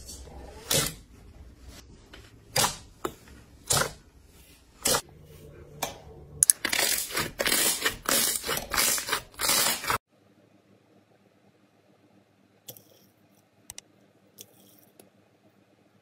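A hand pressing and squeezing thick, glossy slime, giving sharp, loud clicking pops about once a second, then a dense run of squelching, crackling pops for about three seconds. About ten seconds in, the sound drops to a much fainter hush with a few soft clicks.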